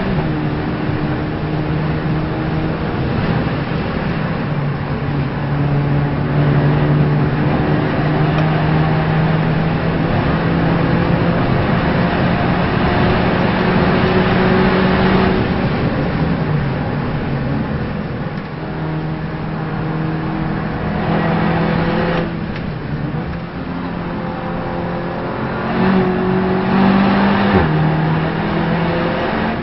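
Race car engine heard onboard during a lap, holding and changing pitch with several gear changes over a steady noisy rush.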